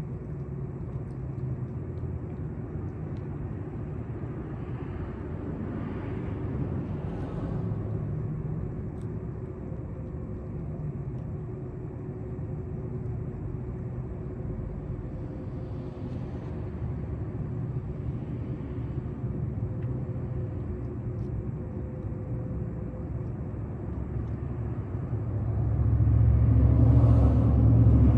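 Steady low rumble of city traffic with a faint steady hum, growing louder near the end.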